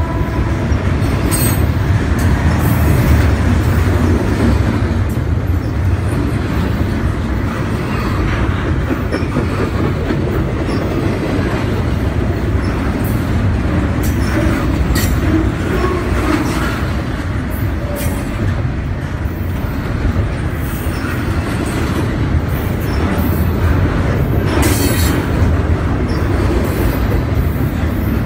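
Double-stack intermodal freight cars of a CSX train rolling past: a steady, loud rumble of steel wheels on rail, with a few sharp clanks and brief squeals along the way.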